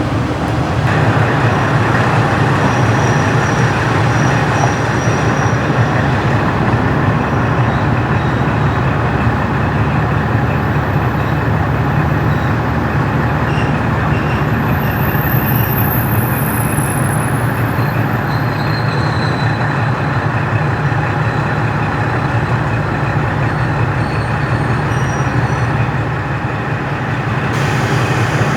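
KiHa 40-series diesel railcar with its original-type engine running steadily under way, a loud low engine drone mixed with running noise. The engine note steps up about a second in and changes near the end.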